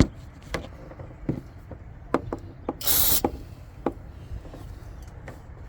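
Aerosol can of brake cleaner sprayed once, a short hiss of about half a second near the middle, onto an electrical connector. Scattered light clicks and taps of handling come before and after it.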